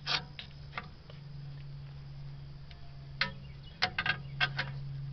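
A screwdriver working at the return springs of a drum brake assembly: scattered sharp metallic clicks and taps, several close together between about three and four and a half seconds in, over a steady low hum.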